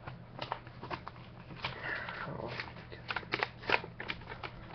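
Sheet of paper rustling and crinkling as it is unfolded by hand from around trading cards, with many irregular small crackles and clicks.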